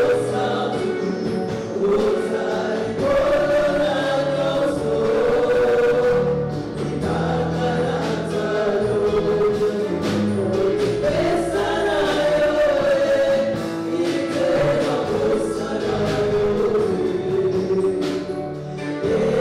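Gospel choir singing a worship song over band accompaniment with a steady bass and a regular beat.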